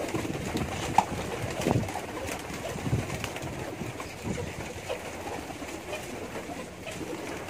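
Domestic pigeons cooing, with scattered small clicks and knocks; a sharp click about a second in.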